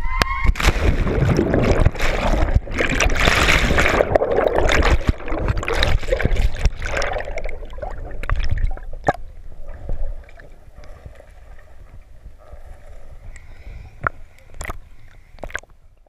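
A short rising cry, then loud rushing and churning water as the camera plunges into the pool, settling after about ten seconds into quieter muffled underwater gurgling with a few sharp knocks near the end.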